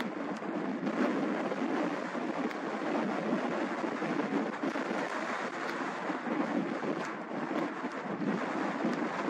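Boeing 767-200 freighter's jet engines during its landing rollout on a wet runway, a steady rumble with the hiss of spray, and gusty wind buffeting the microphone.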